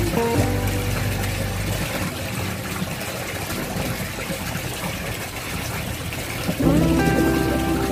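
Tilapia splashing and churning at the water surface of a fish tank, over a steady low hum. Background music comes back near the end.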